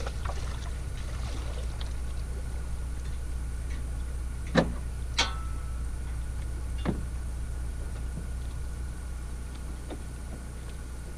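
Small aluminium fishing boat under way on its motor: a steady low drone with water rushing along the hull. Three sharp knocks come about halfway through.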